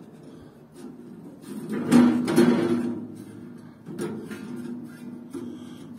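Stainless steel drip pan sliding and clanking into a grill: metal scraping, with several knocks that ring briefly. The loudest knock comes about two seconds in.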